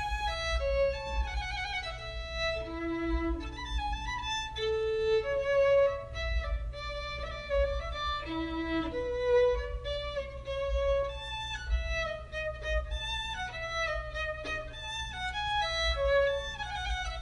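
Closing music: a violin playing a melody of short, changing notes, over a steady low hum.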